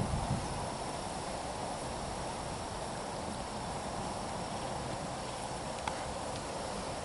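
Steady outdoor insect drone with a faint, even high-pitched whine over a constant background hiss, and one brief faint chirp about six seconds in.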